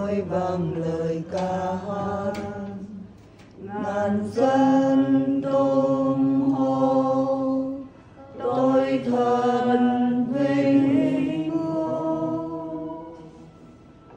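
Voices singing a slow chant in three phrases of long held notes, the last phrase fading out near the end.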